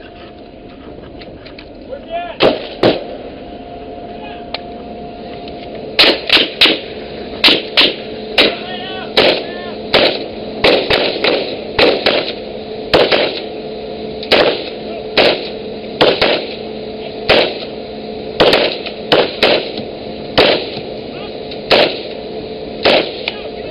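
Rifle fired shot by shot, close by: two shots about two and a half seconds in, then from about six seconds a steady string of single shots, one or two a second and often in quick pairs, over a steady droning tone.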